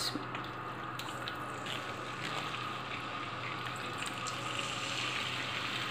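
Raw boneless chicken pieces dropped by hand into hot oil in a karahi, with a soft, steady sizzle that grows a little louder in the second half and a few faint ticks.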